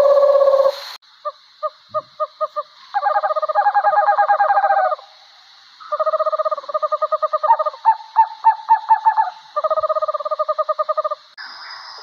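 A steady tone cuts off just under a second in. A barred owl then calls: a quickening run of six short hoots, followed by several long, quavering, trilled hoots with a few separate notes between them.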